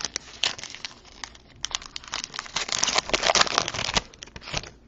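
Crinkly wrapper of a pack of football trading cards being torn open and handled, a dense run of crackling from about two and a half seconds in until near the end.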